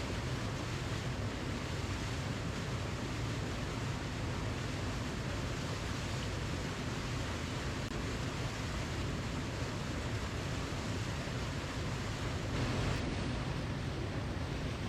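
Waterfall: a steady, even rush of falling water, heaviest in the low end, swelling slightly near the end.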